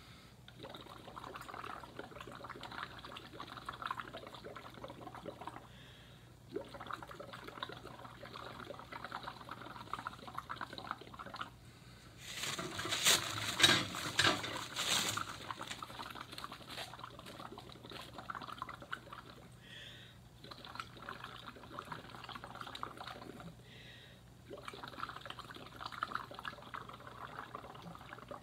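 Bubbling as breath is blown through a plastic straw into a cup of red cabbage juice, in blows a few seconds long with short pauses between for breath. A louder stretch of noise comes about halfway through.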